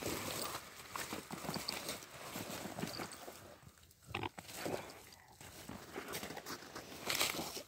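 Rottweiler sniffing and snuffling hard with its nose pushed into dry brush and snow, in short irregular bursts.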